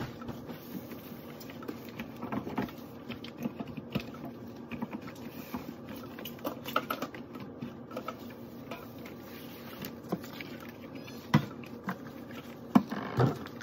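Rubber-gloved hands wiping and handling things around a stainless-steel kitchen sink: many small taps, clicks and rubs, with a few louder knocks near the end as something is set down.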